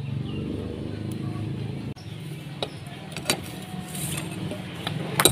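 Metal clicks and taps as a socket wrench on a long extension is fitted to the camshaft sprocket bolt of a Honda Revo Absolute 110 engine and the bolt is turned in: a few sharp clicks from about halfway, the loudest just before the end. A steady low mechanical hum runs underneath.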